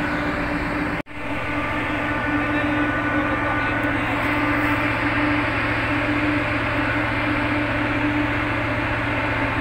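Boat engine running with a steady drone. The sound drops out for an instant about a second in.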